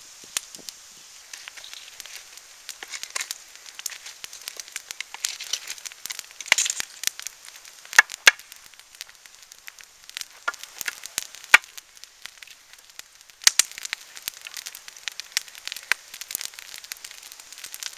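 Wood campfire crackling, with irregular sharp pops over a light hiss.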